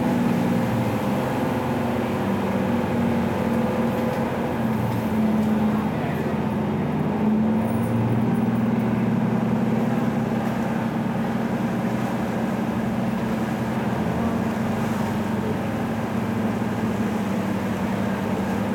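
Ferry engine running steadily under way, a low drone heard on board, its pitch shifting slightly around the middle.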